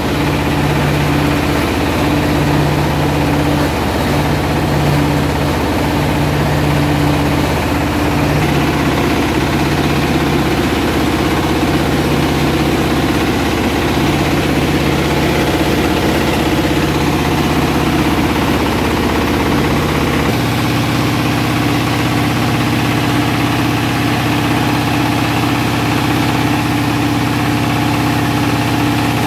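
Stationary engine driving a rice milling machine, running steadily under load as grain is hulled and milled. The hum holds steady, with a pulsing tone that gives way to a different steady hum about two-thirds of the way through.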